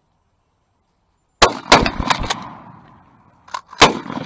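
Shotgun shots: two loud blasts close together about a second and a half in, followed by smaller cracks and a fading tail, then another loud blast near the end.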